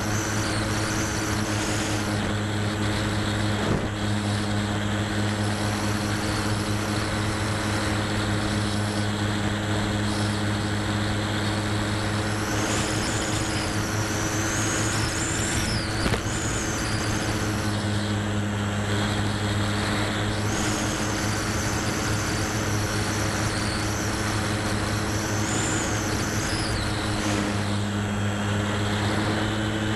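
Electric motor and spinning propeller of a Multiplex Moviestar RC plane, heard from a camera on board: a steady drone over rushing air. A thin high whine rises and falls a few times.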